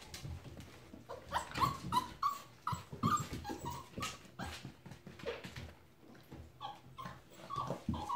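Young puppies whimpering and yipping in a string of short, high cries, with a brief lull past the middle. Light knocks and scratches sound among the cries.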